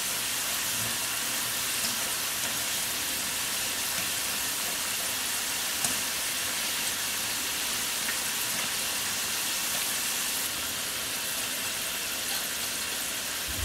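Potato strips deep-frying in hot oil: a steady sizzle with faint crackling, the first fry at medium heat that cooks the fries through before they are taken out to rest.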